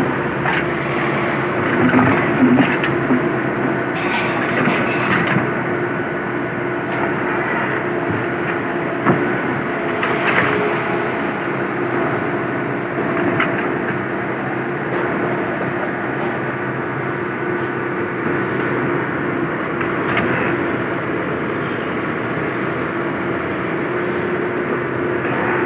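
An excavator's diesel engine running steadily through demolition work, with a few short knocks scattered through it.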